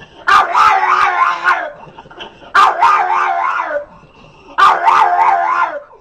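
A dog giving three drawn-out howling barks, each about a second long and about two seconds apart, each opening sharply and dropping a little in pitch at the end.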